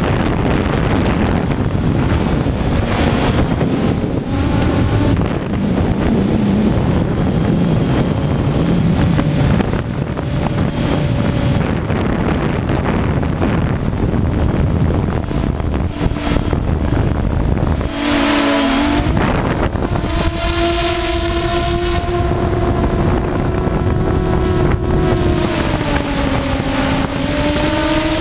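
DJI Phantom quadcopter in flight, wind buffeting its microphone over the hum of its propellers. From about eighteen seconds in the propeller whine comes through clearly, its pitch shifting as the motors change speed.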